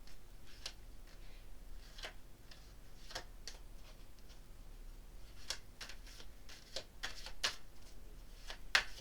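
Tarot cards being shuffled and handled: irregular soft flicks and snaps, coming thicker about five to eight seconds in.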